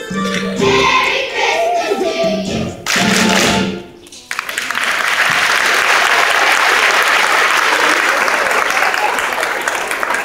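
A children's choir sings the last notes of a song, which end about four seconds in. The audience then applauds.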